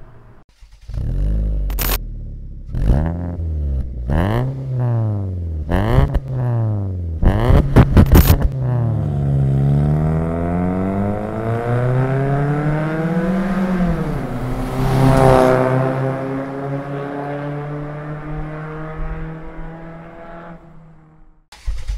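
Perodua Myvi Gen3's four-cylinder engine through a Max Racing R500-MY aftermarket muffler (with a 4-1 stainless extractor and intake upgrade), revved in several quick blips, with a burst of sharp cracks about eight seconds in. The car then accelerates and drives past, loudest about two-thirds of the way through, and the note falls away as it leaves.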